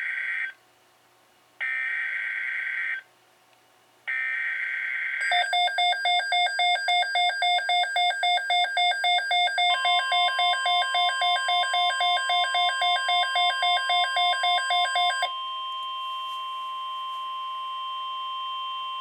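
Emergency Alert System tones on NOAA Weather Radio: three harsh data bursts of the SAME header. They are followed by a loud pulsing beep about three times a second. Partway through, the steady single-pitch warning alarm tone starts under the beeping and carries on alone after the beeping stops.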